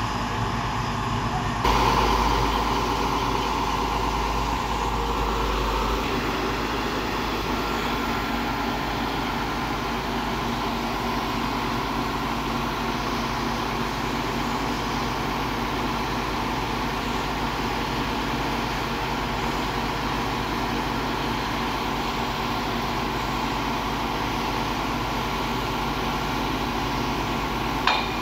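Large excavator's diesel engine running steadily, a little louder for a few seconds after an abrupt change near the start. A sharp click near the end.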